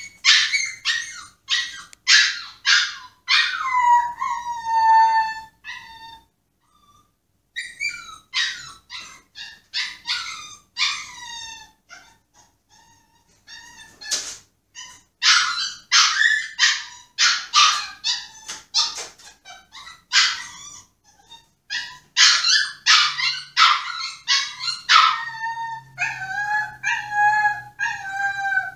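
A Pomsky (Pomeranian–husky mix) whining and yelping in rapid high-pitched runs, broken by drawn-out howling cries about five seconds in and near the end, with a couple of short pauses. It is a tantrum at being shut in its cage.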